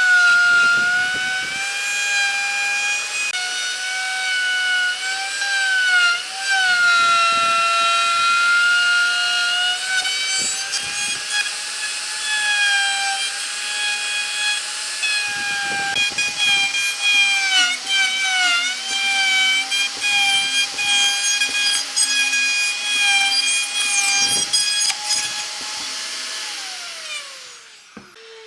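Electric power tool whining steadily as it cuts or shapes wood, its pitch dipping briefly several times as it is pressed into the work. Near the end it is switched off and winds down with a falling whine.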